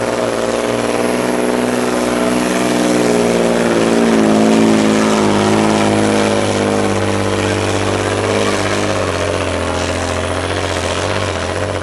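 Volvo pulling truck's diesel engine running flat out as it drags the weight-transfer sled down the pulling track, a loud, steady drone with many overtones.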